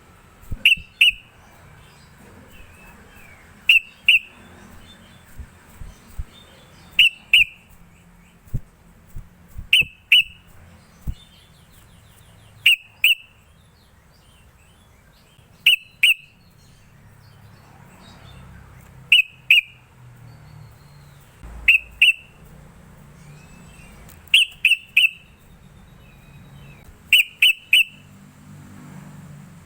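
Yellow-vented bulbul calling: short, sharp whistled notes, mostly in quick pairs repeated about every three seconds, with two quick triples near the end and soft twittering in between.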